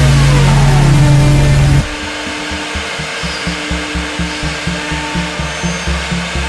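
CNC router spindle cutting into a wood panel, a steady machining noise, under electronic background music that is loud at first and drops off abruptly about two seconds in.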